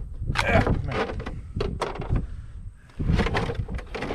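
A string of irregular sharp clicks and knocks, like something being handled, over a low wind rumble on the microphone.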